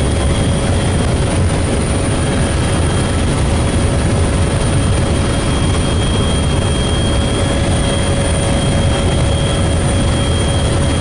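Helicopter running steadily: a loud, even rotor and engine drone with a steady high whine over it.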